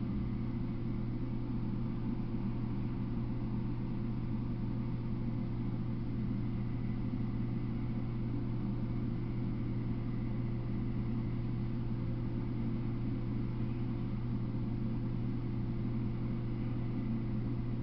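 A steady low hum with an even hiss over it, holding unchanged.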